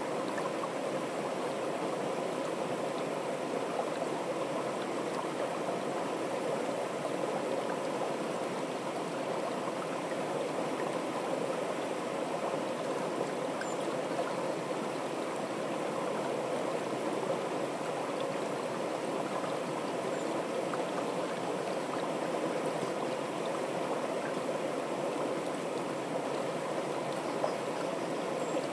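Shallow creek running fast down a narrow wooden-walled channel, a steady, even rush of water.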